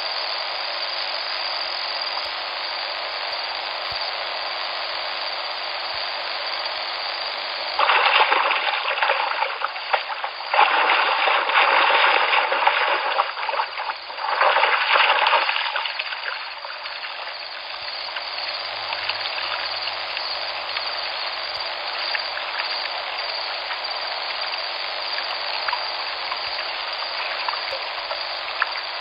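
Shallow river water flowing steadily over the riverbed. About eight seconds in, three louder surges of rushing noise come over it in turn for several seconds, then settle back to the even flow.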